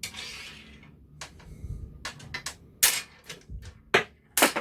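Irregular clicks and knocks of small parts being handled and fitted together during assembly, with a few sharper knocks in the last couple of seconds.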